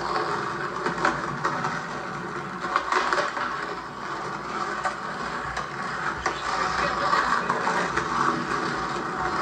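Skateboard wheels rolling over pavement, with a few sharp clacks of the board, and faint voices.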